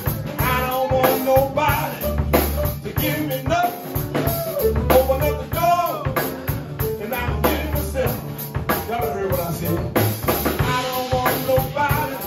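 Small jazz band playing live: a man sings over drum kit, plucked upright bass and piano, the saxophone silent.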